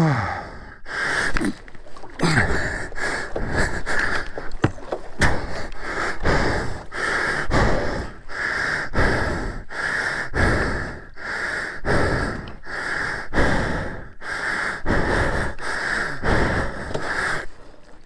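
A man panting hard close to the microphone, in a quick, even rhythm of heavy breaths, nearly two a second: he is exhausted from hauling his motorcycle out of a deep mud puddle.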